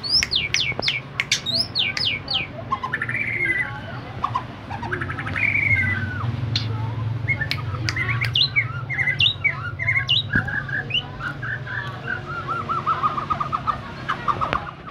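White-rumped shama singing a varied, continuous song: quick falling whistles at the start, then warbled phrases, and a fast run of repeated notes near the end.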